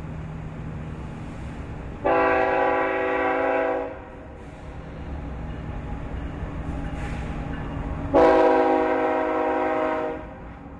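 A horn sounds two long, steady blasts of about two seconds each, the second coming some six seconds after the first, over a steady low hum.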